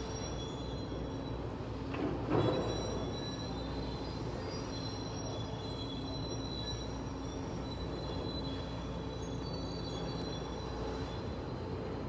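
Steady wind noise with a faint hum of steady tones running through it, and a louder gust about two seconds in.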